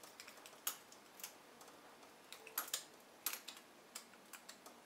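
Faint, irregular small clicks of a screwdriver working the set screw that clamps the wire into a single-pole circuit breaker's terminal, played back at double speed.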